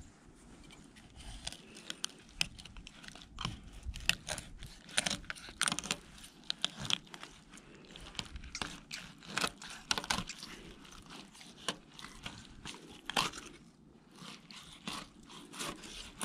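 Fillet knife cutting into a crappie on a plastic cutting board: an irregular run of short crunching and scraping strokes as the blade works through the scaled skin and flesh.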